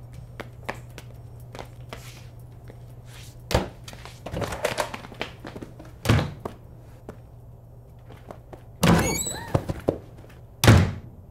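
A series of heavy thuds and knocks, five or so, spaced a second or two apart, the loudest two near the end, one of them with a brief ringing after it. Small clicks come between them over a low steady hum that stops about nine seconds in.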